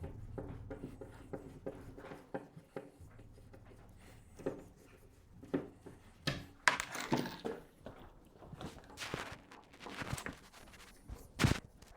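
Screws being taken out of a wooden bed board: rapid clicking and scraping with a low whirr at the start, scattered knocks, and one sharp knock near the end.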